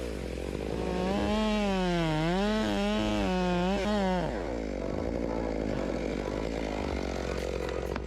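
Chainsaw engine running under load, its pitch rising and falling repeatedly. After about four seconds the tone gives way to a rougher, steadier noise.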